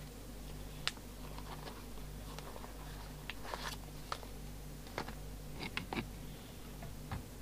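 Low electrical hum with a second, lower buzz pulsing on and off about every two-thirds of a second, and scattered light clicks and taps from handling on the workbench.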